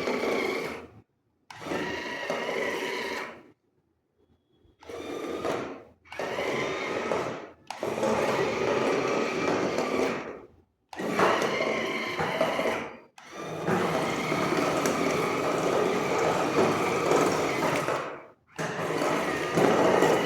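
Small electric gear motors of a basic wired remote-control car whirring in repeated bursts of one to five seconds, starting and stopping abruptly with near-silent gaps between them.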